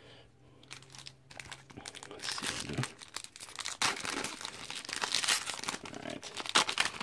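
Foil wrapper of a Pokémon TCG Unbroken Bonds booster pack crinkling and tearing as it is handled and ripped open by hand, starting about two seconds in.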